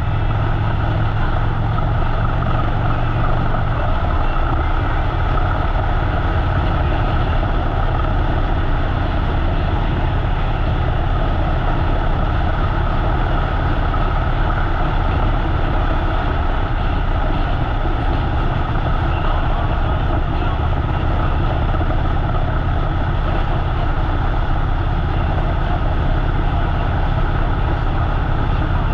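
Harley-Davidson V-twin motorcycle engine running steadily under way, with rushing wind. The engine note shifts slightly about four seconds in.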